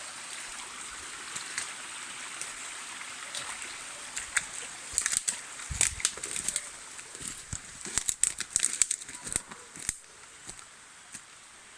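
Spring water trickling steadily. From about four seconds in, irregular crackles, snaps and soft thumps of footsteps through dry leaves and brush come in over it and die away near the end.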